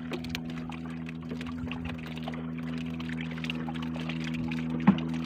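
Boat motor running steadily at a low hum, with water splashing and trickling close by. One sharp knock about five seconds in.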